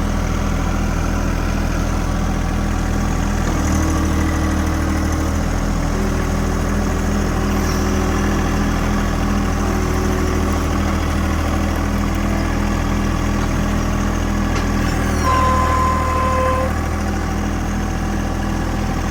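Engine of a machine hauling rock, running steadily, with a brief change in its note about four seconds in and a short steady whine near the end.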